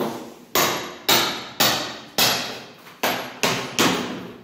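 A hammer striking about seven times, roughly every half second with a short pause midway, each blow ringing on briefly in the hard-floored room.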